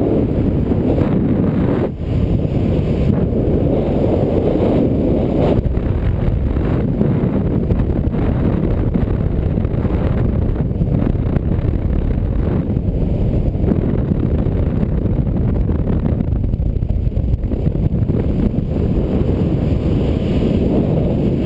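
Wind rushing over a body-mounted camera's microphone while descending under an open parachute canopy: a loud, steady low rumble, dipping briefly about two seconds in.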